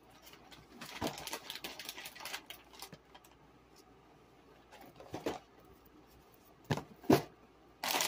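Groceries being handled: plastic bags crinkling and cardboard boxes being moved, in scattered rustles for the first few seconds, then two sharp knocks near the end.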